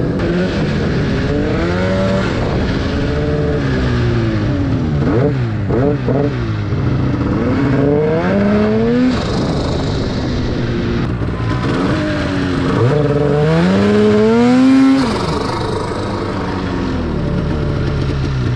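The turbocharged two-stroke 800 twin of a 2019 Arctic Cat M8000 mountain snowmobile, revving up and down again and again under throttle as the sled ploughs through deep powder, its pitch rising and falling every second or two. In the last few seconds the revving stops and it runs steadier and lower as the sled gets stuck in the snow.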